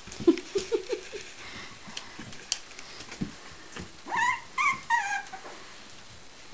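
Six-week-old Shichon puppies play-wrestling: a quick run of four short low growls just after the start, then three high yips at around four to five seconds, the last one falling in pitch. There are a few light scuffling taps in between.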